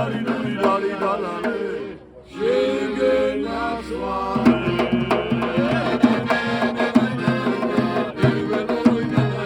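Music with a melody over drum strikes, dropping out briefly about two seconds in and then starting again.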